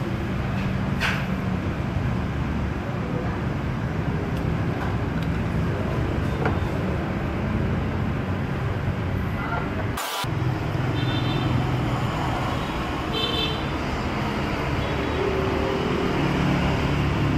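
Steady road traffic noise, a dense rumble of passing vehicle engines, with a single sharp click about ten seconds in.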